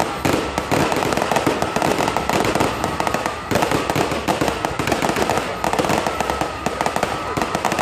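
Fireworks display: a rapid, continuous barrage of bangs and crackling from bursting aerial shells.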